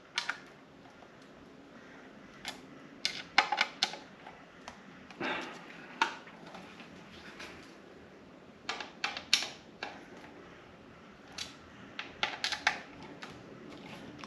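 Plastic car-stereo facia kit parts being handled and clipped together: scattered sharp clicks and knocks, several in quick clusters of two or three.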